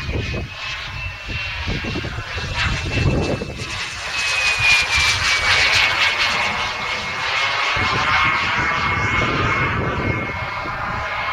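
Wren 54 model jet turbine of a Falcon 120 flying: a high turbine whine over a rushing hiss. It grows louder and drops in pitch as the jet passes, about five seconds in, then settles to a steady whine.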